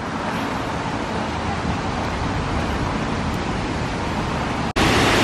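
Steady rushing outdoor noise that grows a little louder, then after a sudden cut about four and a half seconds in, the louder even rush of water pouring down stepped concrete fountain cascades.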